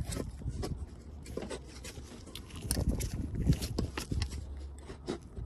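Hands working in a car's engine bay: irregular clicks, taps and light scrapes as plastic hoses, a vacuum line and a wiring harness are handled and routed.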